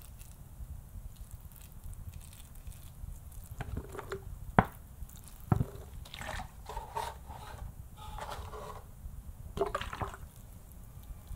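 Water poured from a plastic bottle into a small potted cactus, trickling and dripping onto the soil in several short pours. Two sharp knocks about a second apart come near the middle.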